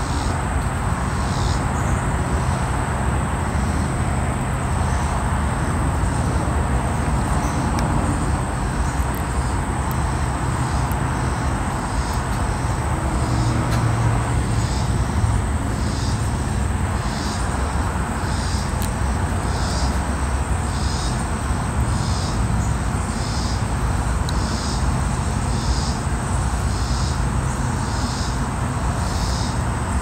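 Steady background noise with a low hum, and a faint high chirp repeating about once a second.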